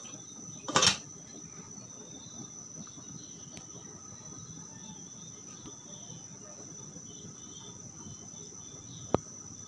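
A glass lid clinks down onto a stainless-steel pot about a second in, then the covered soup simmers quietly under a steady high-pitched whine. A single sharp click comes near the end.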